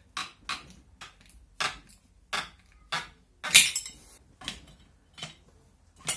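Screwdrivers clinking and scraping against the shaft parts of a VAZ-2109 gearbox as the bearing is pried off: about ten sharp, irregular metal clicks, the loudest a little past the middle.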